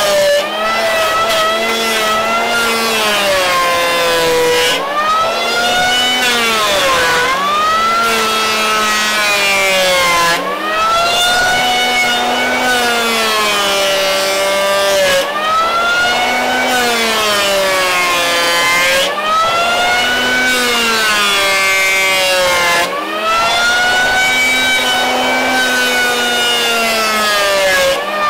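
Triton 180 mm electric hand planer running and taking repeated passes over rough hardwood. The motor's whine sags in pitch under the load of each cut and climbs back between passes, with short dips in level every four or five seconds.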